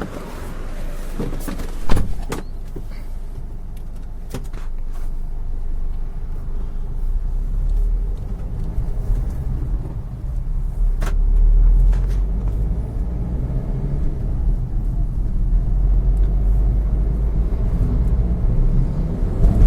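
Maruti Suzuki Swift diesel's 1.3-litre four-cylinder engine running, its low rumble building over several seconds, with one sharp knock about two seconds in. The car has poor pickup and a loud humming drone, which the mechanic traces to a failed clutch plate.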